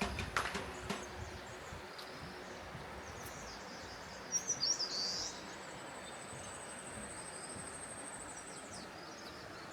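Steady rush of a mountain stream and waterfall, with a songbird giving a quick run of chirps about halfway through and a faint, thin high tone held through the middle.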